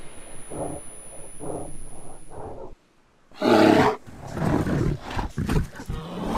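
Bear growling in short pulses, about two a second. It cuts off to silence, then gives a loud roar a little after three seconds in, followed by rough, broken growling.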